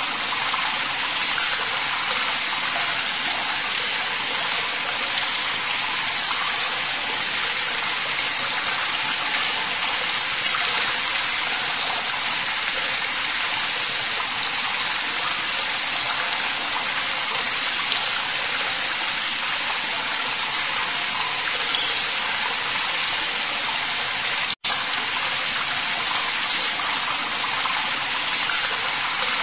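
Waterfall rushing with a steady, even hiss of falling water. The sound drops out for an instant about 24 seconds in.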